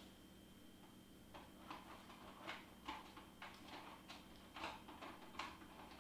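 Faint, irregular plastic clicks and taps, about a dozen spread over a few seconds, as marker pens are picked through and sorted.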